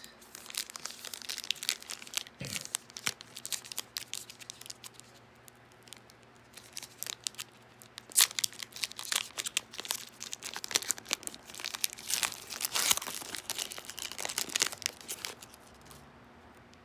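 Foil wrapper of a trading-card pack crinkling and tearing as it is ripped open by hand, in many quick crackles. The crackling stops about a second before the end.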